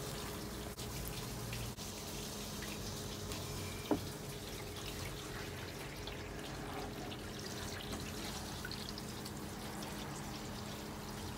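Steady splashing and trickling of water poured or sprayed over a pickup's cab and bed during a water leak test, with a single knock about four seconds in.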